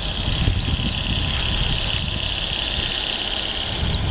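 Aerial tram car's carriage sheaves rolling along the steel track ropes with a steady high-pitched hum, over a low fluttering rumble of wind on the microphone.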